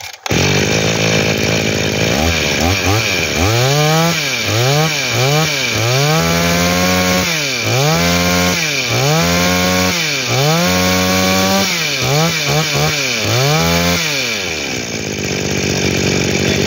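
Shindaiwa S20 brush cutter's small two-stroke engine, with a two-needle horizontal carburettor, running. Its throttle is blipped by hand at the carburettor, revving up and dropping back over a dozen times in quick succession. Near the end it settles back to a steadier idle.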